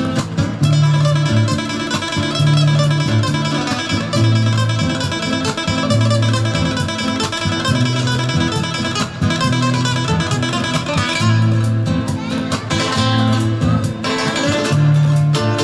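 Background music: flamenco-style acoustic guitar playing with rapid strumming over a repeating bass line.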